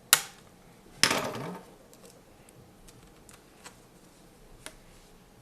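A sharp snap, then a louder crackling rustle of about half a second, followed by a few faint clicks: packaging being cut and pulled off the dehumidifier's vinyl drain hose.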